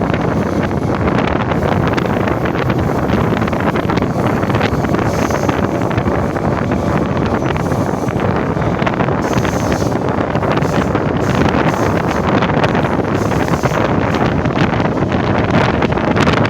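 Local train running at high speed: a steady, loud rumble with rattling wheel-on-rail clicks, and wind buffeting the microphone.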